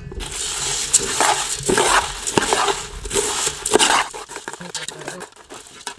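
Dry puffed rice rustling and pattering in a metal pot, then mixed with a spoon that clinks and scrapes against the pot. The sound is loud and dense for about four seconds, then thins to scattered clicks.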